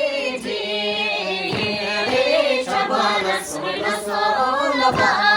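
A group of voices singing a Bhutanese folk song together, in long held notes, as accompaniment to a circle dance.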